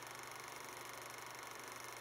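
Steady faint hiss with a low hum underneath and no distinct sounds: the background noise of a silent film transfer.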